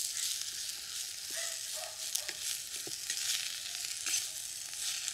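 Vegetables and tomatoes sizzling in coconut oil in a clay pot, stirred with a perforated metal ladle that gives a few short taps and scrapes against the pot.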